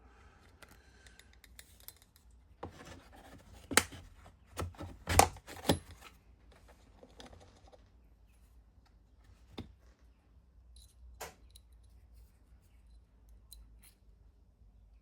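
Small metal parts of a watchmaker's jewel press set being handled and set down: a cluster of sharp clicks and knocks a few seconds in, then a couple of single clicks later, over a faint rustle of handling.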